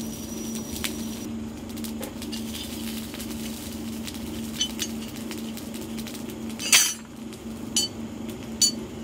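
Steel bar blanks clinking against each other and against metal as they are handled by a forge: a few light clinks, one louder clink about two-thirds of the way in, and two more near the end, over a steady low hum.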